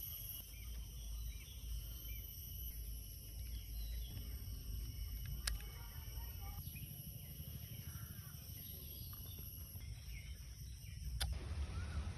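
Outdoor ambience: scattered short bird chirps over a steady low rumble and a faint high-pitched hum, with two sharp clicks, one about halfway through and one near the end.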